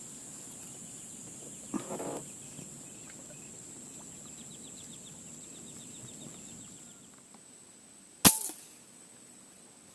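A single sharp airgun shot about eight seconds in, with a short ring after it.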